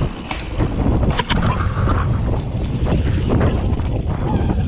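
Wind rushing over the microphone and a full-suspension mountain bike rattling over dirt at speed, with several sharp knocks scattered through.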